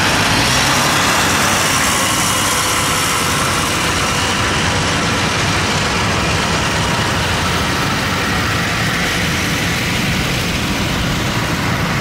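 Yanmar AW82V rice combine harvester running steadily, a continuous engine and machinery noise with no breaks.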